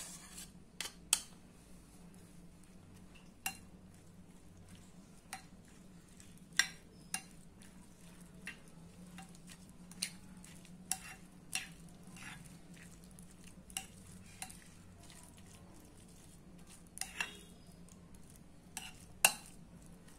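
Metal spoon scraping curd off a bowl and then stirring it into soaked flattened rice (aval) in a glass bowl, knocking against the glass with sharp clinks at irregular intervals.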